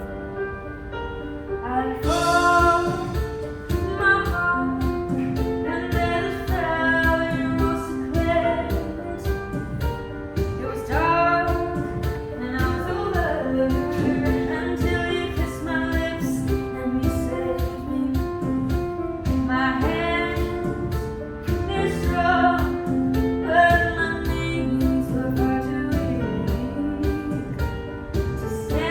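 A song with a woman singing over instrumental backing with a steady beat; the voice comes in about two seconds in after a short instrumental opening.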